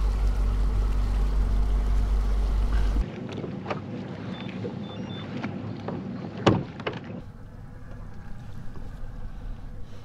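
A 250 hp outboard motor running at trolling speed, a steady low rumble with wind and water rush. About three seconds in it drops away to quieter water and hull noise, with a few light knocks and one louder knock near the middle.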